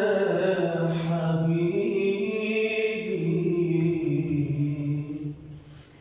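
A man singing unaccompanied, a long drawn-out line from a classic Egyptian song, held on slowly wavering notes that fade out about five seconds in.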